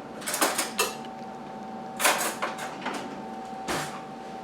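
Kitchen handling noises: two quick clusters of short scrapes and knocks, then one more near the end, over a faint steady hum.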